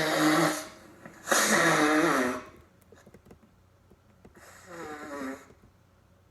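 A person blowing their nose: three blows about a second long each, the last one quieter.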